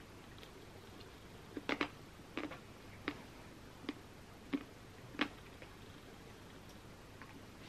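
Chewing a bite of a Magnum Raspberry Swirl ice cream bar: about seven short, sharp crunches and clicks of the hard chocolate coating between about one and a half and five seconds in.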